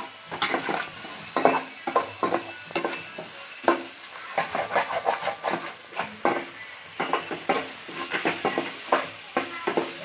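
A spoon scraping and clinking against a metal pot in quick, irregular strokes as an onion-tomato masala is stirred while it fries, with a light sizzle underneath.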